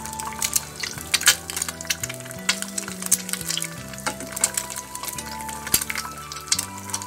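An egg frying in hot oil in a frying pan, crackling and spitting with many quick irregular pops, with a metal spatula scraping at the pan now and then. Background music with low held notes that change about once a second runs underneath.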